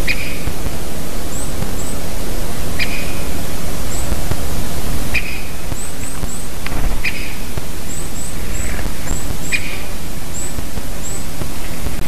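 Great spotted woodpecker giving its sharp single 'kik' call about every two seconds, five or six times. Small songbirds add thin, very high call notes, often in quick pairs. All of it sits over a steady loud hiss.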